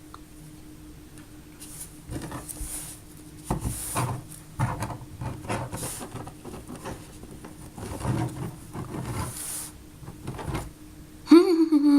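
Play-Doh set pieces and figures being moved about on a tabletop: a run of irregular light knocks, taps and rubs.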